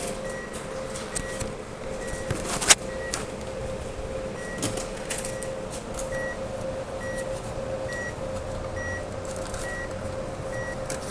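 Cash deposit ATM beeping repeatedly, a short beep about once a second over the machine's steady hum, as it hands back banknotes it could not accept. A sharp click sounds a little under three seconds in.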